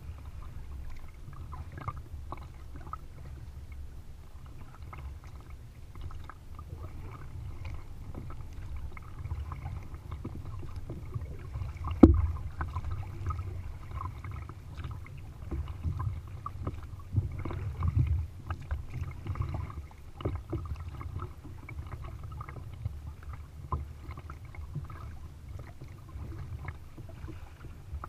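Kayak paddling: the double-bladed paddle dipping and splashing in the water stroke after stroke, over a steady low rumble, with one sudden loud thump about twelve seconds in.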